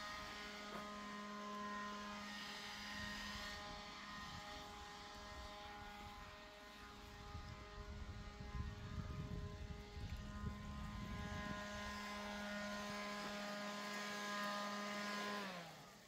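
Garden leaf blower running at a steady high speed, a constant whining tone over a rush of air. It is switched off near the end, its pitch falling as it spins down.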